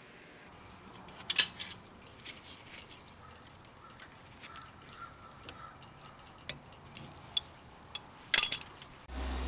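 Scattered metal clicks and clinks of pliers and brake parts handled at a car's rear brake caliper, with two louder clattering clusters, one early and one near the end. A steady low hum starts abruptly just before the end.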